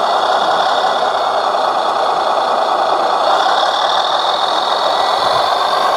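ScaleART Mercedes Actros 6x6 radio-controlled truck running, a steady engine-like drone without breaks.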